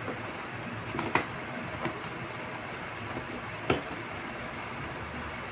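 A few sharp plastic clicks and taps from an action-camera mount being handled and fitted on a motorcycle helmet, the loudest about two-thirds of the way in, over a steady background hiss.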